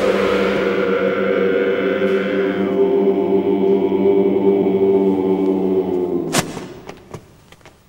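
Row of court constables chanting the drawn-out "wei-wu" court-opening call in unison: male voices holding one long note for about six seconds before it fades. A single sharp knock follows near the end, then a few faint taps.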